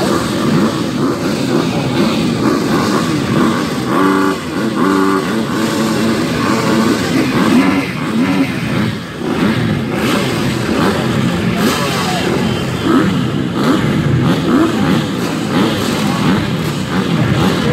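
Many motocross dirt bike engines running and revving together at a start line, a dense, continuous mass of overlapping revs that rise and fall.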